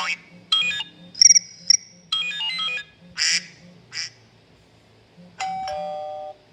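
Phone ringtone snippets and sound effects played in quick succession over a steady low pulsing beat. There are short runs of bright electronic notes, a high warbling tone, two short noisy squawks, and near the end a held tone that steps down in pitch.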